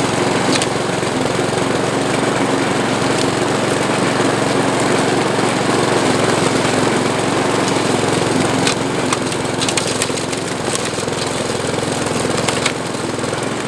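Walk-behind rotary lawn mower's small petrol engine running steadily while cutting grass, with a few sharp clicks scattered through it.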